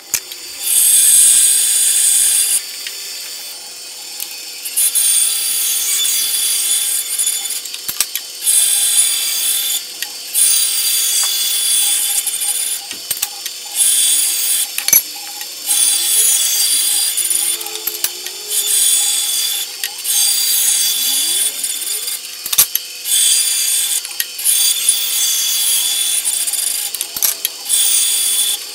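Bandsaw running with a steady hum while its blade cuts through a wooden handle blank; the cutting noise starts and stops every couple of seconds as the piece is fed through and pulled back.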